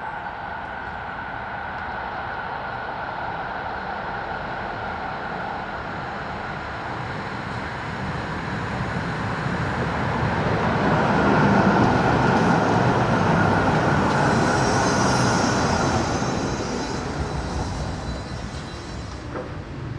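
Duewag GT10NC-DU articulated tram approaching and passing on its track. The rumble of its wheels and motors grows louder, peaks about halfway through and then fades. A faint high squeal from the wheels comes in toward the loudest part.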